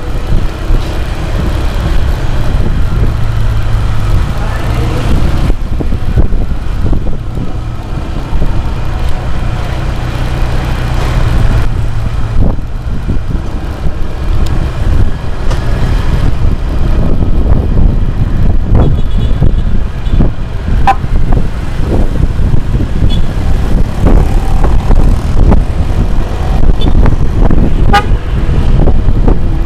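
Riding through road traffic: a steady loud rumble of engine and road noise, with vehicle horns tooting several times, mostly in the second half.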